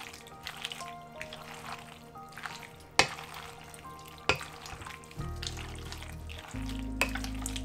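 Wooden spoon stirring a mayonnaise-dressed pasta salad in a glass bowl: wet mixing sounds with three sharp knocks of the spoon against the bowl, over background music.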